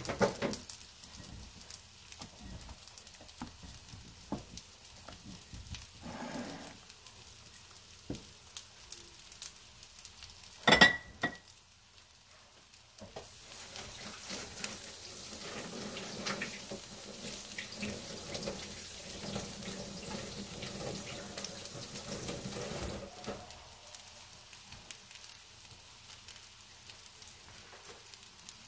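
Small egg-battered pancakes frying in oil on a griddle pan: a steady crackle of many small pops. About eleven seconds in there is a single sharp clink with a brief ring, and from about thirteen to twenty-three seconds a louder, steady rushing noise rises over the sizzle, then stops.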